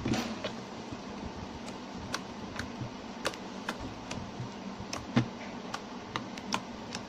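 Thick glue-and-shampoo slime being poked and pressed by hand on a flat surface, giving irregular sharp little clicks and pops, about two or three a second, over a steady background hum.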